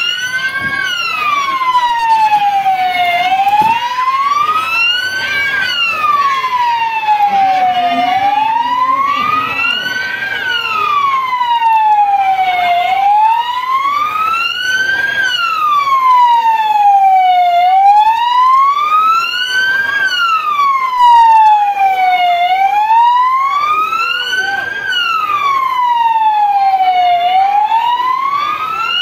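Electronic siren of a fire-and-rescue emergency van sounding a slow wail, its pitch rising and falling smoothly about every five seconds.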